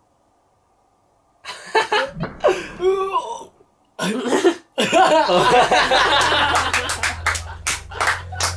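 A rubber balloon popped with a needle about a second and a half in, after near silence, followed by a startled vocal reaction. Then a group laughing and clapping, with sharp claps near the end.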